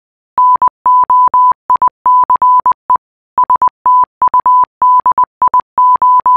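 Morse code beeps: a single pure electronic tone keyed on and off in short dots and longer dashes, spelling out "NOICE STUDIOS", with a longer pause between the two words.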